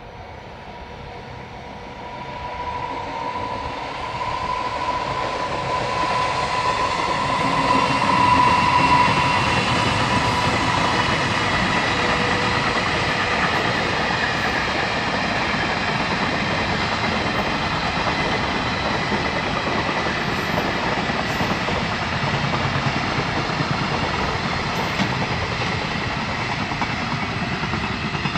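JR Freight freight train, an electric locomotive hauling a long string of freight wagons, approaching and passing at speed. The noise builds over the first several seconds, peaks, then carries on as a steady clatter of wagon wheels over the rail joints.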